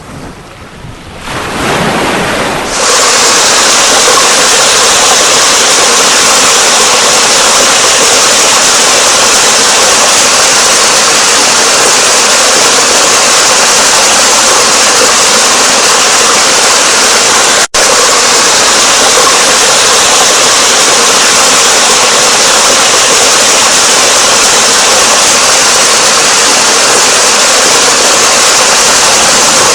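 Rushing water, a loud, steady, even roar with no rise and fall of waves, as from a waterfall or fast river. It swells up from a quieter water sound over the first three seconds and cuts out for an instant about 18 seconds in.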